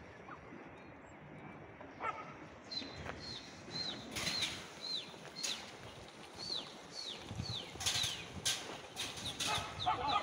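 A small bird calling over and over: short, thin, falling chirps about twice a second, starting a few seconds in, with a few sharp knocks and rustles among them.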